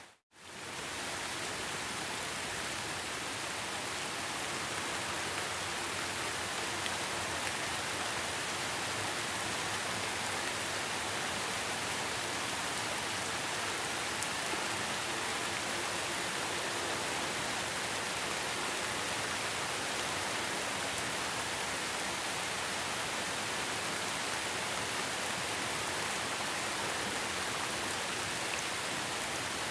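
Steady rain, a dense even hiss of drops falling on a surface. Just after the start it cuts out for a moment and fades back in.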